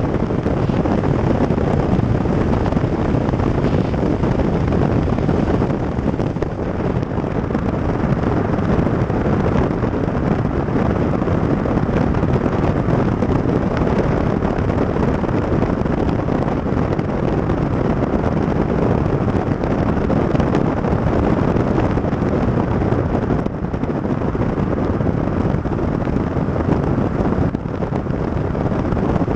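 Wind buffeting the microphone of a camera mounted on the outside of a moving car, over the steady noise of the car's tyres on the road.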